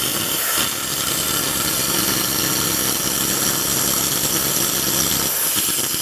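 Machine-mounted oxy-fuel cutting torch cutting through steel plate: a steady, loud hiss of the gas jet burning through the metal.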